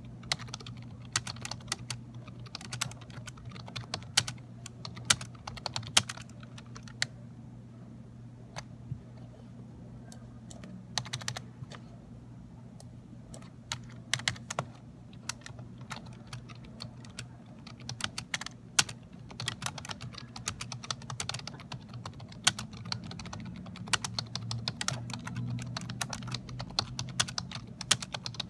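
Typing on a Dell computer keyboard: fast, uneven flurries of key clicks with a couple of brief lulls, over a low steady hum.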